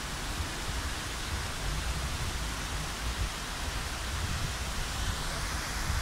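Steady rush of the Gegsky waterfall, a tall mountain waterfall pouring off a limestone cliff onto rocks.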